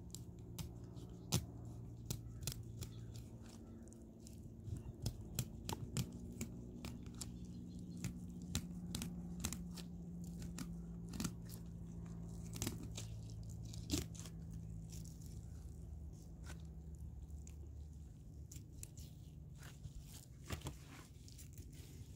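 Fillet knife cutting along a rainbow trout's spine, giving off irregular small crunches and clicks as the blade works past the bones. A steady low hum runs underneath.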